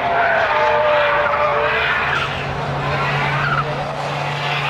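Drift cars' tyres squealing over engine noise, the squeal holding and sliding in pitch, with a steady low drone joining about halfway through.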